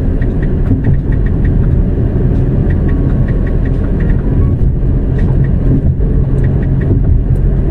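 Car driving at speed, heard from inside the cabin: a steady rumble of engine and road noise, with faint light ticks over it.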